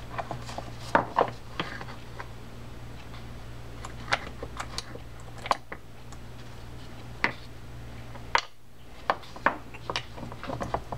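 Scattered light clicks and taps of small metal reel parts as the lubricated main shaft of a spinning reel is worked and seated through the crosswind block in the reel body, over a steady low hum.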